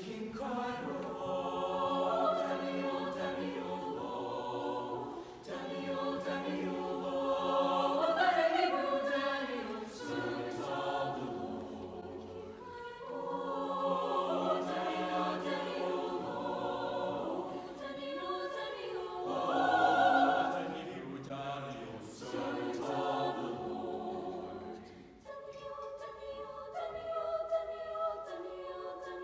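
Mixed choir of teenage voices singing in parts, entering together at the start and moving through sustained phrases broken by short breaths, swelling loudest about two-thirds of the way through.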